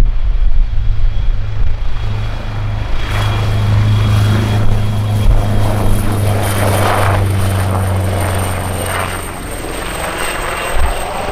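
AgustaWestland AW139 twin-turbine helicopter running close by: a steady low rotor drone with a thin high turbine whine over a rushing noise that swells and fades, easing off a little near the end.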